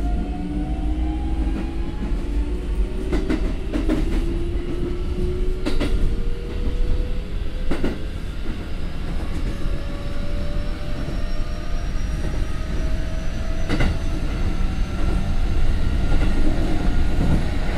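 Keikyu 1500 series electric train's Toyo IGBT VVVF inverter and traction motors whining, several tones climbing steadily in pitch as the train accelerates, over a steady running rumble heard inside the car. Wheels clack over rail joints a few times.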